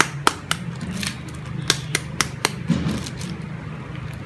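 Small foil seasoning sachet being handled, crinkling with irregular sharp clicks, most of them in the first two and a half seconds, over a steady low hum.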